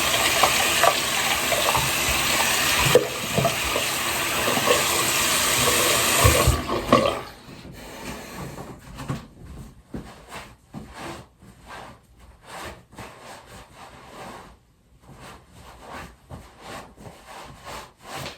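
Water running hard and steadily, cut off suddenly about seven seconds in, then faint scattered clicks.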